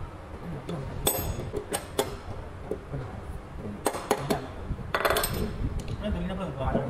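Steel tools clinking and knocking against a tractor dual-clutch pressure plate as its release fingers are adjusted with a socket extension bar: a run of sharp metallic clicks, with a short clatter about five seconds in.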